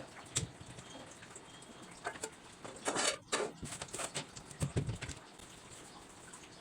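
Kitchen things being handled and put away: scattered light knocks and clicks, with a short scraping, rustling stretch about three seconds in and a dull thump near the end.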